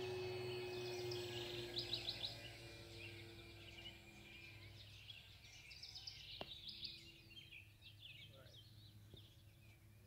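Model Cessna 182's motor and propeller humming as it flies off, its pitch sliding a little lower as it fades out over the first few seconds. Birds chirp in bursts through it.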